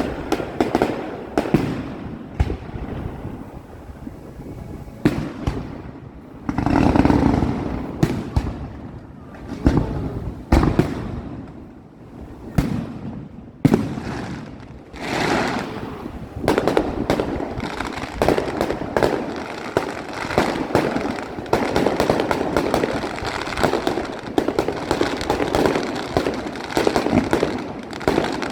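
Fireworks display: aerial shells bursting in a string of sharp bangs with echoes, turning into a dense, nearly continuous crackle of many bursts over the last ten seconds or so.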